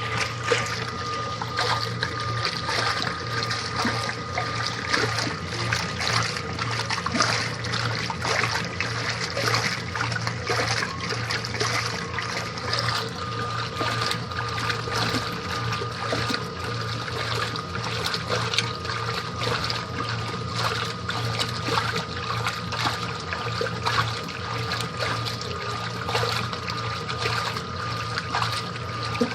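Washing machine running, with water splashing and trickling continuously over a steady motor hum and a thin, high, steady whine.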